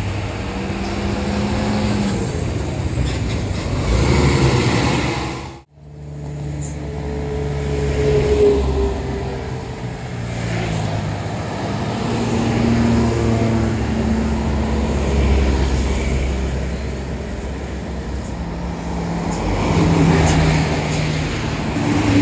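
Road traffic with vehicle engines running, their pitch stepping up and down as they change speed. The sound cuts out abruptly for a moment about six seconds in.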